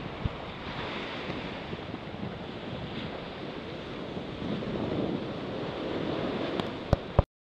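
Sea surf breaking on a sandy beach, with wind buffeting the microphone. Two sharp knocks near the end, then the sound cuts off suddenly.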